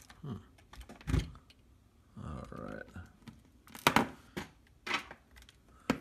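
Hand-tool handling on a DJI Phantom 4 drone's plastic shell: a series of separate sharp clicks and knocks as a small screwdriver works the body screws back in during reassembly.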